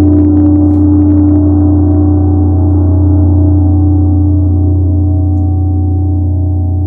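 80 cm Tibetan gong ringing on after felt-mallet strokes: a deep hum with a strong steady tone above it and many overtones. A high shimmer fades away in the first couple of seconds, and the whole sound slowly dies down.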